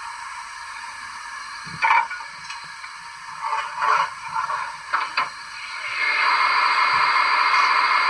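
Zimo sound decoder in a Bachmann 56xx model steam tank engine playing steam sounds through its speaker. A faint hiss runs under a sharp burst about two seconds in and a few short bursts around the middle. From about six seconds in, a loud steady hiss of steam takes over.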